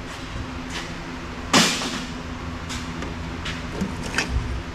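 Scrap metal parts clanking as they are sorted from an old steel toolbox: one loud clank about a second and a half in, as a piece lands in the ferrous pile, then a few lighter clinks and a dull thump near the end.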